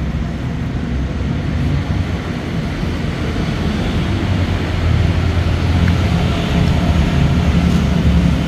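Low, steady rumble of vehicle engines, growing louder about five seconds in.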